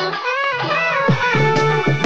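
Music playing: a song with a melodic lead over deep bass notes and drum hits.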